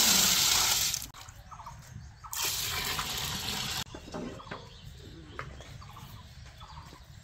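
Water pouring and splashing in two spells, the first stopping abruptly about a second in and the second running from about two and a half to four seconds in. Faint bird chirps and small clicks in between and afterwards.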